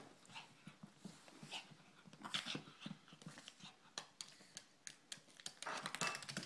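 A Shih Tzu panting and sniffing close to the microphone, with scattered light clicks and a louder rustling burst near the end.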